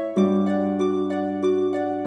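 Background music: a gentle melody of plucked notes, about three a second, over a low sustained bass note that changes just after the start.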